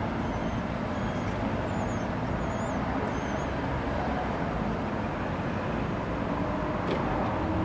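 Steady urban traffic noise. A few faint, high, wavering bird chirps sound over it during the first few seconds.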